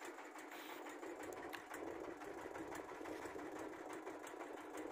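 A small engine running steadily, with a fast, even ticking.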